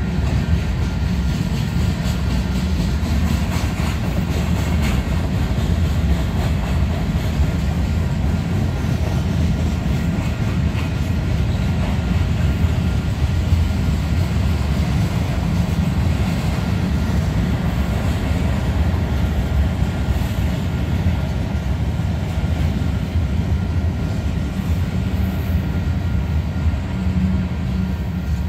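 Freight train cars rolling past steadily, their wheels running on the rails in an unbroken low rumble.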